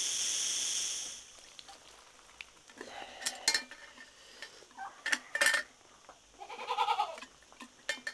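Insects chirring steadily, cutting off about a second in; then a goat bleats a few short times amid scattered knocks and clinks of pots.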